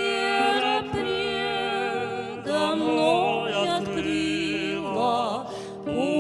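Church choir singing a hymn with piano accompaniment, the voices entering just as the piano introduction ends.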